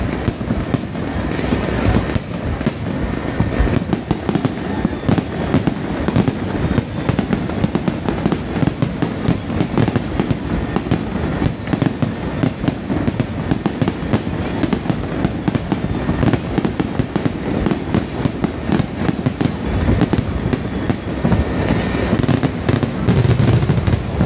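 Aerial fireworks bursting in quick succession: a dense, unbroken barrage of bangs and crackles.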